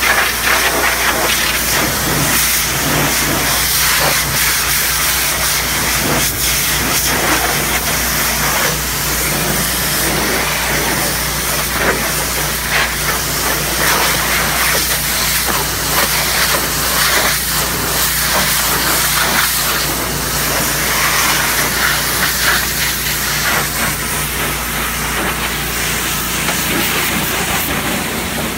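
High-pressure washer wand spraying water onto a semi-truck tractor's cab back and frame: a steady, loud hiss of spray, with a steady low machine hum underneath.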